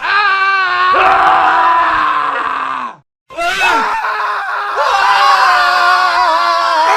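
Men screaming: several overlapping, wavering screams spliced together as a montage, with a sudden cut to silence about three seconds in before a new scream starts.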